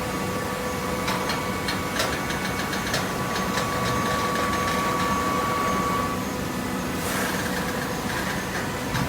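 Hydraulic baler running: a steady hum with a high whine that stops about six seconds in. There are a run of clicks and knocks between about one and four seconds in, and a hissing rush near the end.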